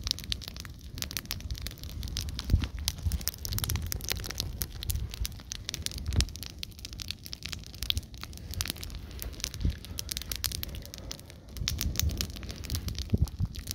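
A pile of sneakers burning in an open fire, crackling with many quick irregular pops over a low, steady rush.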